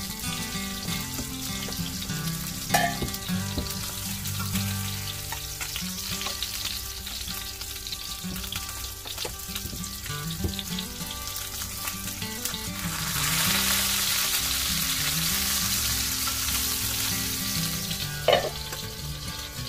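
Salmon pieces frying in a pan, a steady sizzle that swells louder for about five seconds past the middle. A couple of sharp clicks of a utensil against the pan, one near the start and one near the end.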